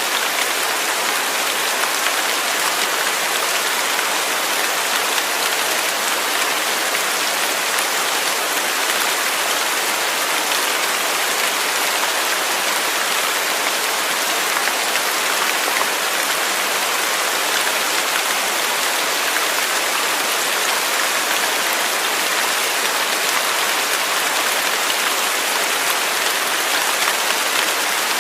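Steady rain falling without thunder, an even hiss of many drops on a surface.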